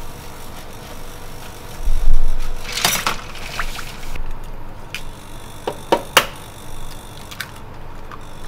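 Kitchen prep handling sounds. A dull thump about two seconds in is followed by a short rush of water and ice shifting in a steel bowl. Later come a few sharp clicks as eggs are tapped and cracked against a stainless bowl.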